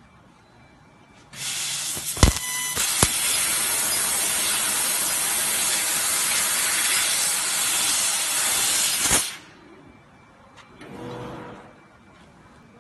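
Fiber laser cutting 10 mm carbon steel with compressed air as the assist gas: a loud steady hiss of the air jet through the cutting head, starting about a second and a half in and cutting off sharply after about eight seconds. Two sharp cracks come near the start of the cut.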